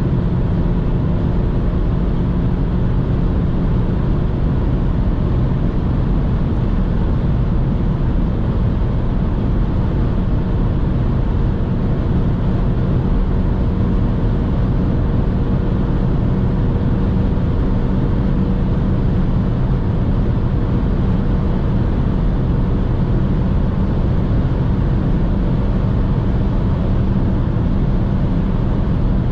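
Cabin sound of a 2006 BMW 118i's 2.0-litre four-cylinder petrol engine droning at high revs at about 200 km/h, under steady wind and tyre noise.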